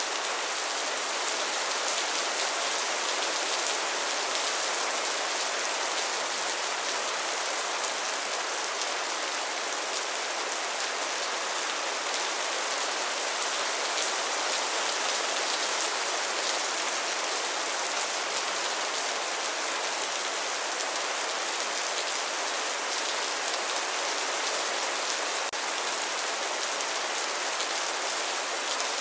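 Steady rain falling, a dense even hiss of drops on a surface.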